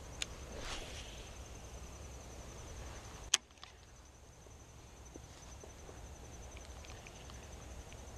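Cast with a baitcasting rod: a swish of the rod near the start, then a single sharp click about three seconds in. A steady high insect trill runs underneath.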